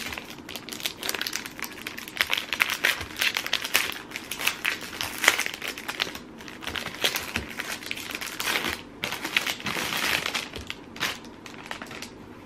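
Clear plastic wrap crinkling and crackling as it is pulled and peeled off a hardcover planner, in a dense, uneven run of crackles that dies away about a second before the end.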